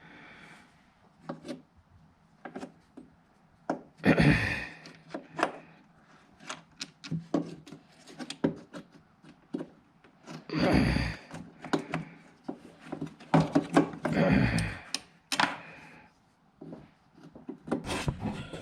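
Hand-and-tool work on a lawn mower: scattered clicks and knocks of metal parts being handled, with three longer, louder scraping rubs about four, ten and a half and fourteen seconds in.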